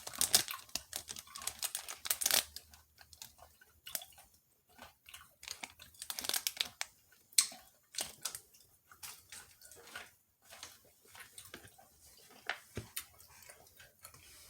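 Biting into and chewing a crispy fried egg roll close to the microphone: a run of irregular crackling crunches, heaviest in the first couple of seconds and again around the middle.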